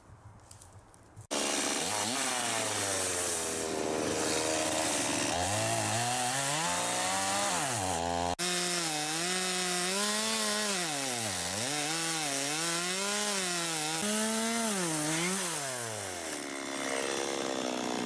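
Two-stroke petrol chainsaw sawing a slice off a tree stump. It starts abruptly about a second in, and its engine pitch rises and sags again and again as the chain bites into the wood. It cuts off suddenly near the end.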